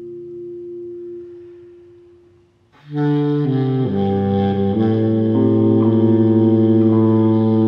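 A held electric guitar chord dies away almost to silence; about three seconds in a baritone saxophone comes in loud, playing a free-jazz line of held notes that steps up and down over the guitar.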